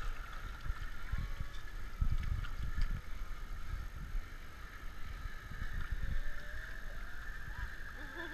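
Water sloshing and splashing around an elephant's legs as it wades through a river, with irregular low rumbling bumps on the microphone and a steady high-pitched drone in the background.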